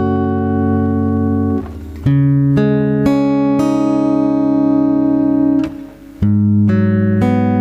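Instrumental karaoke backing music: held chords that break off briefly twice, each time moving to a new chord.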